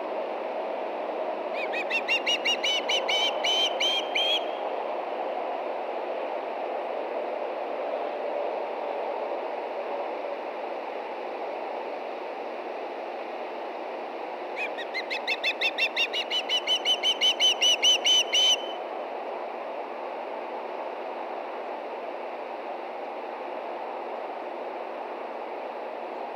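Osprey calling in two bouts of quick, repeated whistled chirps, about five a second. The second bout is longer and grows louder. A steady low background rumble runs underneath.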